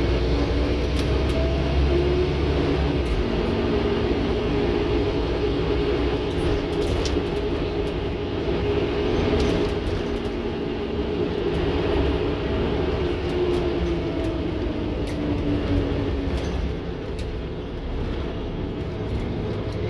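Interior sound of a Scania N230UD OmniCity bus under way: its engine and driveline give a steady drone with a pitched tone that rises and falls as the bus pulls along, over road noise, with a few light clicks and rattles.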